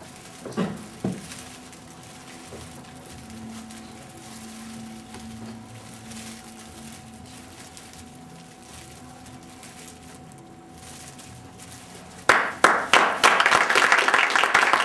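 Low room noise with a faint steady hum, then an audience breaks into applause about twelve seconds in, loud clapping that carries on past the end.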